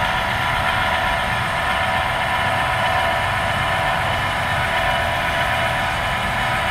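Electric trailer tongue jack motor running steadily, retracting to lower the trailer tongue and put weight back onto the tow vehicle's hitch.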